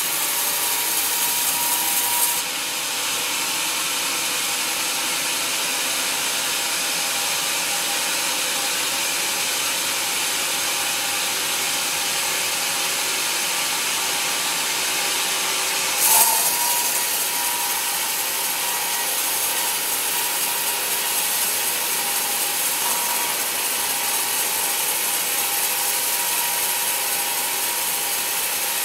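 Band sawmill blade cutting lengthwise through a partly rotten teak log: a steady hiss of sawing with a thin steady whine over it. A short sharp knock comes just past halfway.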